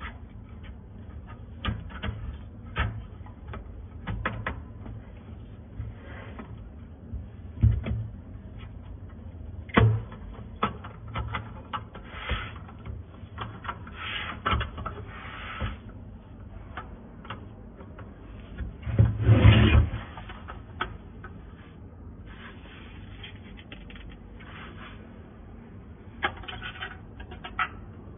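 Handling noise from fitting a cooling fan into a welder's sheet-metal case: scattered plastic and metal clicks, taps and rubbing, with a louder clatter lasting about a second roughly two-thirds of the way through.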